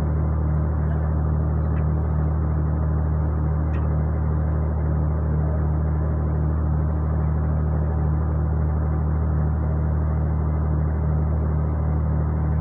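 Steady low drone of a ship's engine machinery, an even hum with a slight regular pulse in it. Two faint clicks, about two and four seconds in.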